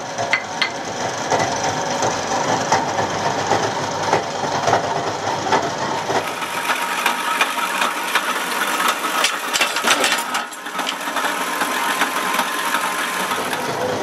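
Workshop machinery running steadily, with frequent short metallic knocks and clatter over the top.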